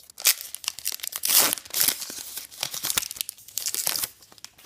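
A foil wrapper of a baseball card pack being torn open and crinkled by hand: a run of crackling, tearing strokes, loudest in the first two seconds, dying away near the end.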